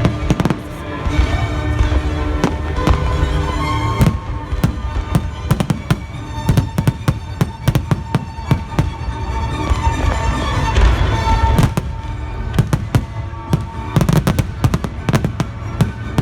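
Fireworks going off in rapid volleys of sharp bangs over loud music from the show's sound system, with a dense cluster of bangs near the end.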